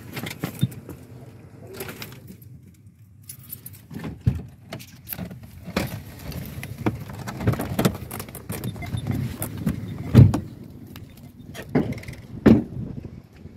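A person getting out of a car with a phone in hand: scattered clicks, knocks and rustling of door and handling noise, with the loudest thump about ten seconds in and another about two and a half seconds later.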